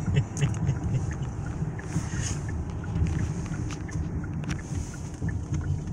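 Steady low road rumble of a car being driven, heard from inside the cabin, with scattered light clicks.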